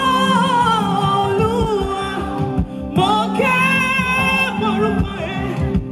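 Female gospel singer belting into a microphone: a long held note with vibrato, then a second phrase about three seconds in, over a sustained backing chord from the band.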